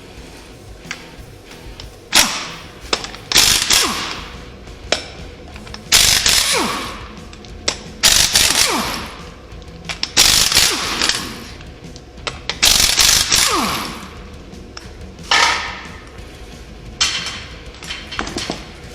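Impact wrench loosening a truck wheel's lug nuts: about eight short rattling runs a second or two apart, each trailing off in a falling whine as the tool spins down.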